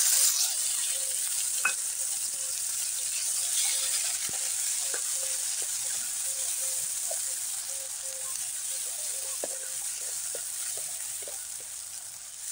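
Wet ground mustard masala paste sizzling in hot oil in a non-stick kadai, with scattered small pops and a wooden spatula stirring and scraping it round the pan. The sizzle starts suddenly as the paste goes in, then slowly dies down as it fries.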